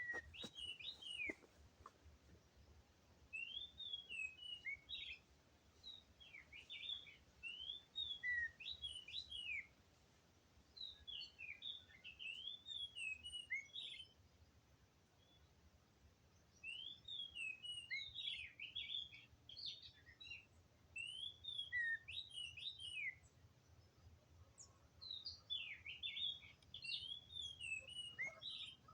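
Oriental magpie-robin singing: quick, varied whistled notes that rise and fall, in phrases a few seconds long with short pauses between them.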